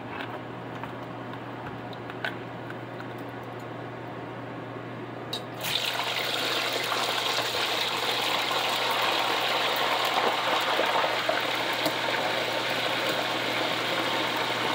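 Plantain chunks, still wet from a salty vinegar-water soak, going into a pot of hot oil: the oil starts sizzling suddenly about six seconds in and keeps up a loud, steady hiss. Before that there are only faint clicks from the wire strainer.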